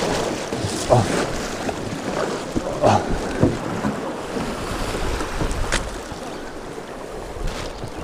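Fast river water rushing and splashing against a small aluminium boat as it is poled through the current, with wind buffeting the microphone and a few sharp knocks.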